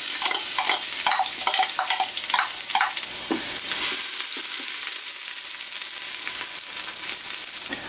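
Chopped onion sizzling in hot ghee in an Instant Pot on high sauté, stirred with a utensil for the first three seconds or so, then left to sizzle steadily.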